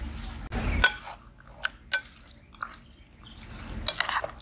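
Chopped coriander dropped into a glass bowl of thick curd and sliced onion, then hand-mixed: soft rustling and wet squelching, with a few light clicks.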